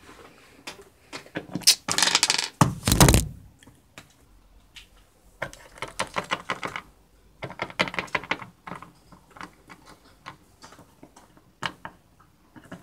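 Plastic Littlest Pet Shop figurines being handled, tapped and set down on a hard tabletop: runs of light clicks and clacks. The loudest clatter, with a low bump, comes about two to three seconds in.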